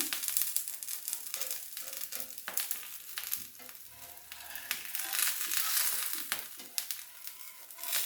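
Oats and bottle gourd roti frying in ghee on a hot pan: a steady crackling sizzle, a little quieter about halfway through.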